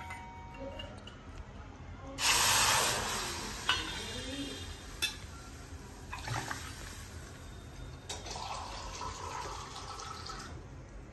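Water poured from a steel katori bowl into a cooking pot. A loud pour comes about two seconds in and a softer one near the end, with a few knocks of steel vessels in between.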